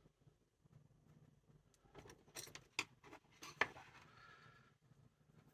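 Faint clicks and light knocks of small parts being handled while a portable radio is put back together: four or five sharp ticks from about two seconds in, the loudest near the middle, followed by a brief soft scraping rattle.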